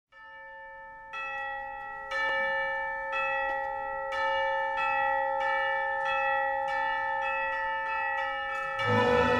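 Bells struck one at a time about once a second, each stroke ringing on under the next and growing louder over the first few strokes. Orchestral music comes in near the end.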